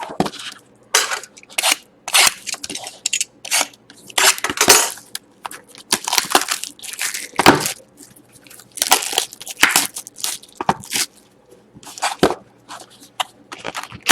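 A cardboard mini box of trading-card packs being torn open and the wrapped packs pulled out by hand: irregular tearing and crinkling rustles of cardboard and pack wrappers.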